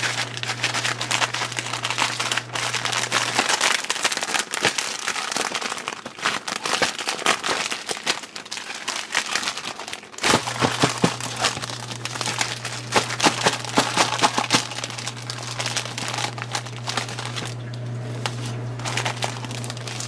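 Crinkling and crackling of the cellophane-windowed box of Peeps marshmallow chicks being handled and opened. A steady low hum runs under it for the first few seconds and again from about halfway.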